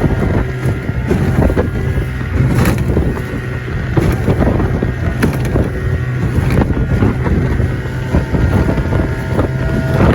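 A 14-foot Livingston boat's outboard motor running steadily under way in rough water, with the hull knocking and slapping irregularly against the waves. Wind buffets the microphone.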